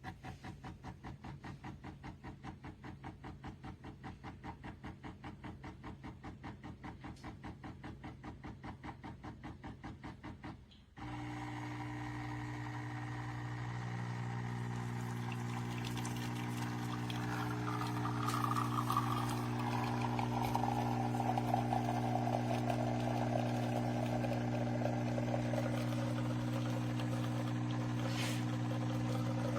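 Espresso machine running: about ten seconds of even pulsing, about six beats a second, then it switches abruptly to a steady motor-like hum. Over the hum a watery, hissing sound slowly falls in pitch.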